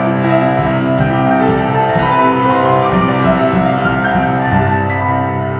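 Live piano with bass playing an instrumental passage without vocals: a run of evenly struck piano notes over held bass notes, settling into a sustained low chord about four and a half seconds in.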